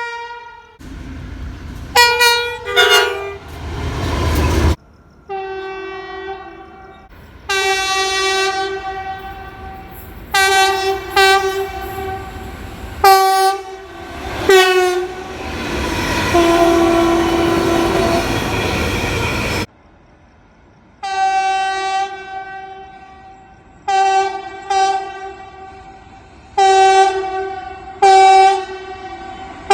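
Train horns sounding a series of blasts, short and long, each a chord of several steady notes, across several clips. In the middle a train rumbles past while its horn sounds, the horn's pitch dropping as it goes by.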